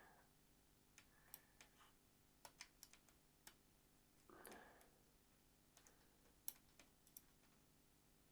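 Near silence broken by faint, scattered small clicks and taps of tools working inside a Nintendo Switch Lite as a ribbon cable is disconnected.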